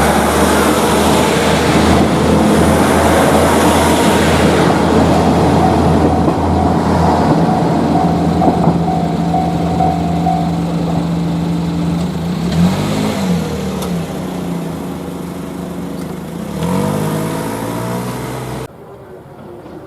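A train passing close by, loud and steady, with a pitched whine from its drive that rises and falls twice near the end. The sound cuts off suddenly just before the end.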